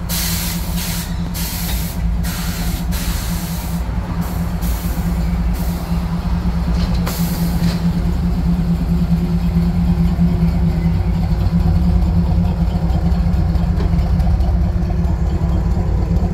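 Air-ride suspension on a 1951 Chevrolet 3100 pickup letting air out in a series of short hisses over roughly the first eight seconds, dropping the body to the ground. A steady low hum runs underneath throughout.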